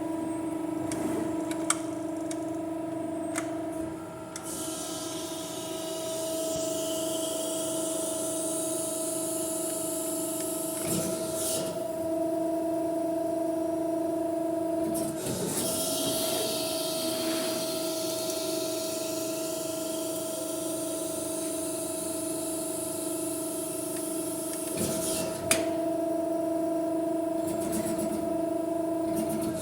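CNC press brake running: a steady machine hum throughout, with two long stretches of high hiss as the machine works and a few sharp clicks, one loud about 25 seconds in.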